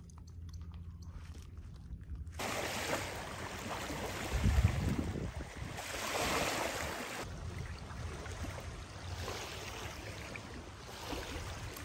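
Wind gusting on the microphone over the lapping of lake water at a shoreline, an even rushing noise that swells and fades. The background changes abruptly about two seconds in and again past the middle.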